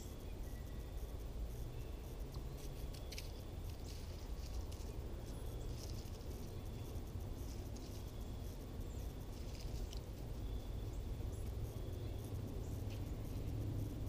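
Faint outdoor ambience: scattered short, sharp bird chirps, a faint high steady tone that comes and goes, and a low constant rumble underneath.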